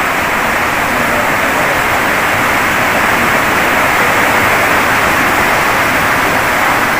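Steady, even rushing noise with no breaks, strongest in the middle range.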